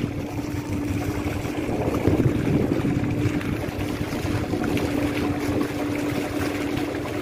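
Fishing boat's engine running steadily at sea, a constant hum over a low rumble.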